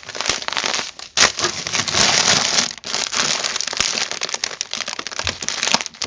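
Plastic bags of grain crinkling and rustling as a hand squeezes and shifts them on a shelf, with scattered sharp crackles.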